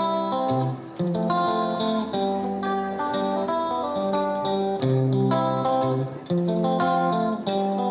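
Background music led by plucked guitar, with a steady run of notes over a bass line.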